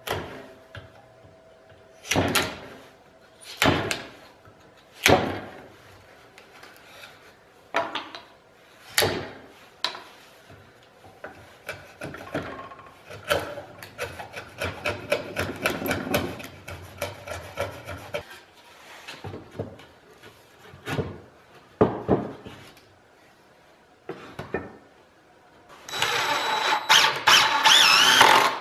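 A wood chisel breaking out and paring the waste from a dado cut into a pine 2x4 between saw kerfs: a series of sharp knocks a second or two apart, with a stretch of rapid scraping in the middle. Near the end a DeWalt 20V MAX cordless impact driver starts up, driving a screw into the wood.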